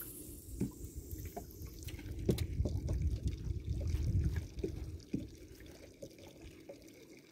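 Small waves lapping and slapping against the hull of a drifting open boat, with scattered little splashes and drips and a heavier wash of water in the middle.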